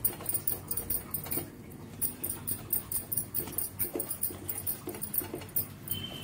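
Paneer being grated by hand on a metal grater: a quick, regular rasping, one short scrape after another, about three or four strokes a second.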